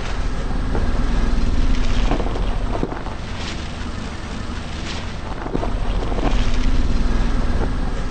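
Car engine running and tyres rolling on asphalt, louder twice as the car passes, with several sharp crackling snaps as the tyre crushes a head of cauliflower and broccoli.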